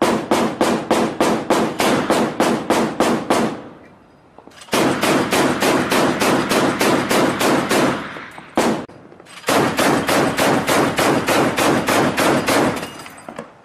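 Shipboard Mk 38 25 mm chain gun firing on automatic: three long bursts at about four rounds a second, with a single shot between the second and third.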